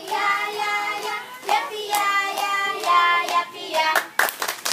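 A group of young children singing an action song together, with a quick run of hand claps about four seconds in.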